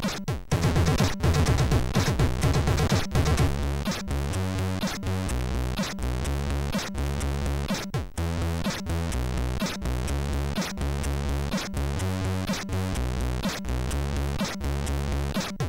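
Commodore 64 SID sound-chip music: an electronic chiptune with a steady beat and a pulsing, repeating bass line. It breaks off briefly about half a second in and then carries on with a new pattern.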